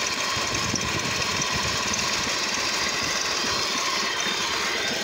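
GM 3800 Series II V6 idling roughly, misfiring: cylinders 2 and 5 get no spark because their ignition coil has failed.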